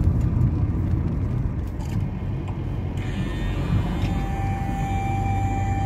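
Car cabin noise while driving: a steady low rumble of engine and tyres on the road. About halfway through, steady electronic tones from the car radio come in and hold.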